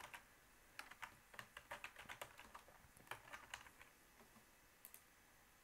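Faint typing on a computer keyboard: a quick run of keystrokes lasting a couple of seconds, then a few scattered single clicks near the end.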